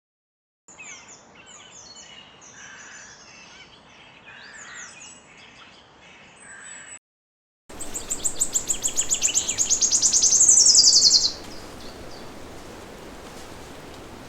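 Forest birdsong: several birds chirping in short, falling high notes, then, after a brief break, a louder rapid trill of high notes that speeds up and swells before stopping, followed by steady background hiss.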